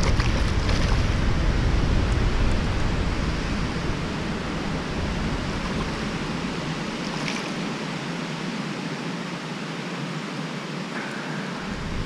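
Wind rushing over the microphone, mixed with the splashing of a hooked bass thrashing at the water's surface. The low wind rumble fades after about four seconds and comes back near the end.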